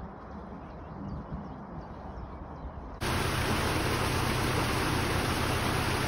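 A quieter low rumble gives way, about halfway through, to a loud, steady rush of water pouring and spraying through the leaking wooden gates of a canal lock.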